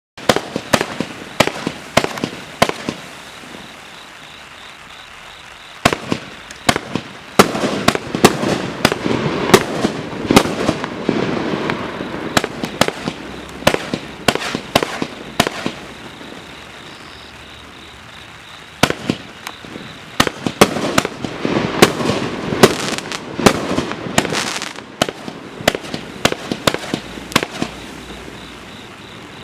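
Mad Ox 'Party Gras' 500-gram fan cake firing its shots: a long run of sharp bangs and bursts, with a crackling haze during the two busiest volleys, about a third of the way in and again about two-thirds through, and thinner spells between them.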